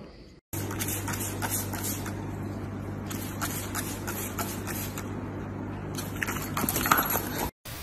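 Hand-held plastic spray bottle squirting water in several short sprays, over a steady low hum.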